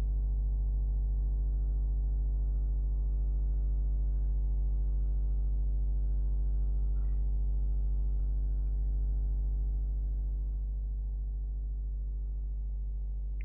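Steady low electrical hum with a stack of buzzing overtones above it, easing slightly about ten seconds in.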